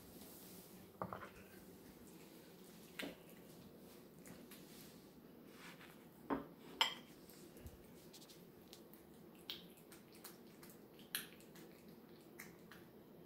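A few sharp clinks of ceramic plates knocked and set down on a wooden countertop, the loudest two close together about six seconds in. Between them come fainter clicks of a cat licking and eating off a plate.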